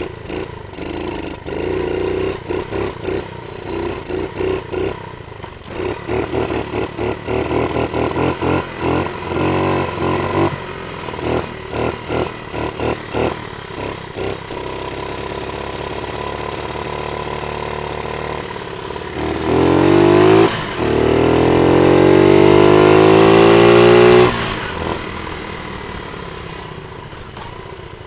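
50cc Panterra dirt bike engine running while being ridden. It surges on and off with the throttle for the first half, then drones steadily. About two-thirds of the way through it revs up twice, rising in pitch, before the throttle is shut and it dies back down.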